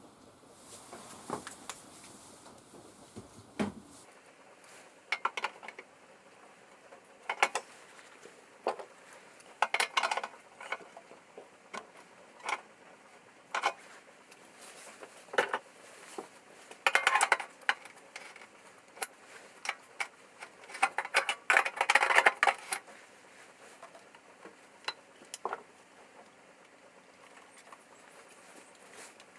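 Small parts and tools being handled during hands-on repair work: scattered clicks and short bursts of clatter, with a few busier stretches.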